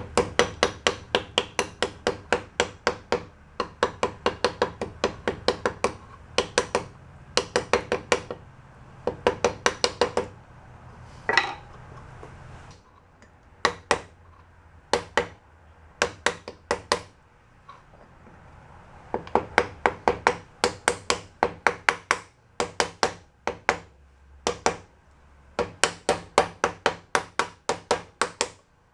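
Hammer striking a drift in quick bursts of blows, about four or five a second, each ringing briefly, driving a bearing race down into a bearing housing.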